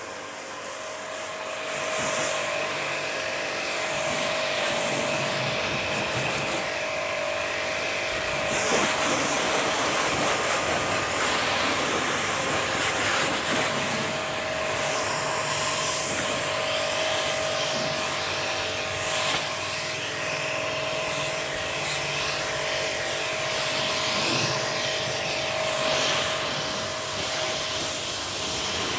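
Ballorex B7KS-CW130 2300-watt electric high-pressure washer running steadily while its jet sprays water onto a car's bodywork: a steady motor whine under the hiss of the spray.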